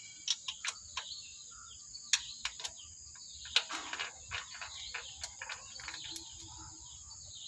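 Irregular metallic clicks and taps of a hand tool working on the valve gear of a Nissan engine's open cylinder head, a few a second, over a steady high-pitched hiss.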